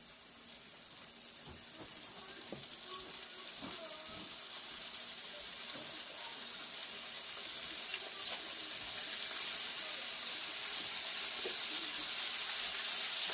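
Flour-dredged shrimp frying in a pan of hot oil: a steady sizzle that grows gradually louder as more shrimp are dropped in.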